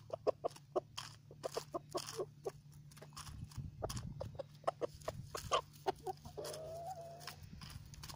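Young roosters clucking in quick, short calls as they feed, with one longer drawn-out call about six and a half seconds in.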